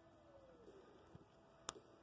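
Very quiet wood fire of burning tree branches in a small kettle barbecue, with one sharp crackling pop near the end. A faint wavering tone sounds underneath.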